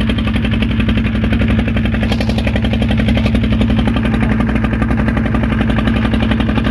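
Small fishing boat's engine running steadily with the boat under way, an even, unchanging engine note.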